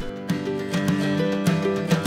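Background music: acoustic guitar strumming a country-style tune with a steady beat.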